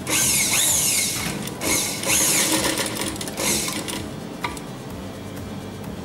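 Sewing machine stitching in three short runs, stopping briefly between them, its whine rising and falling in pitch as it speeds up and slows. A single sharp click follows about a second after the last run.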